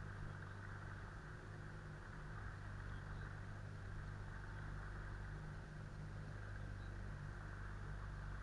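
Boat's outboard motor running steadily at low speed, a constant low drone heard from aboard the boat.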